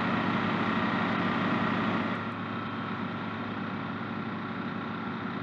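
Truck engine of an aircraft de-icing vehicle running steadily, a low even drone that eases slightly after about two seconds.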